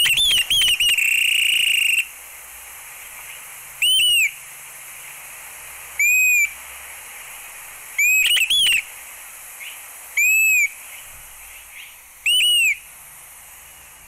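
Dusky-capped flycatcher calling: a quick run of short whistles, then one long steady whistle, then single plaintive whistles that rise and fall in pitch about every two seconds, one of them doubled.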